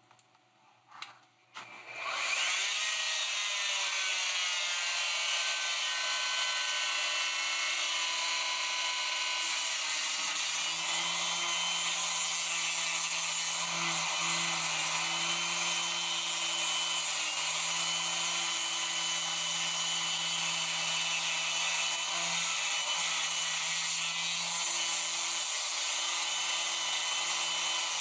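Electric plunge router starting up about two seconds in, its whine rising in pitch and then running steadily as the bit cuts a circular recess into extruded polystyrene foam insulation board. A deeper hum joins about ten seconds in and runs on through the cut.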